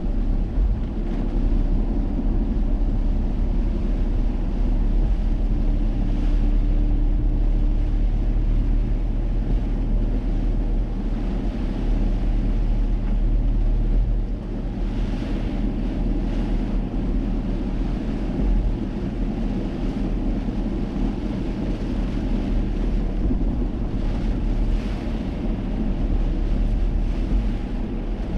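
Car driving on rain-soaked roads: a steady low rumble of engine and tyres, with a couple of brief hissing swells partway through.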